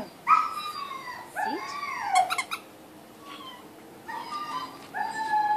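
Pit bull-type dog whining and yelping in a series of high, wavering cries, excited while tugging at a toy, ending in one longer drawn-out whine near the end.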